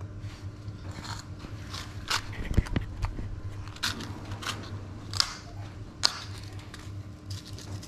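Small handling noises as nylon fishing line and hooks are worked by hand: scattered crinkles and sharp clicks, a dozen or so spread irregularly, over a faint steady low hum.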